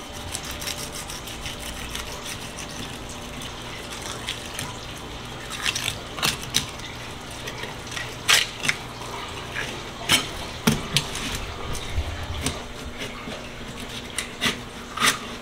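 Filleting knife cutting a red sea bream on a plastic cutting board: scattered short clicks and scrapes as the blade works along the backbone and rib bones, more frequent in the second half. Under them runs a steady background hiss.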